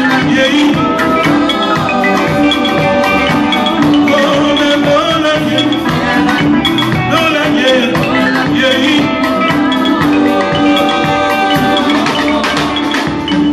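Live gospel band playing an upbeat song with a steady beat: bright repeated electric-guitar lines, drums and bass, with women singing.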